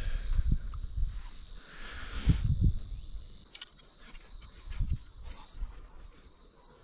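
Bumps and rustling as fishing gear and a bag are handled on a grassy bank, loudest near the start and again a little over two seconds in, with a few sharp clicks. Under it runs a thin, steady high trill.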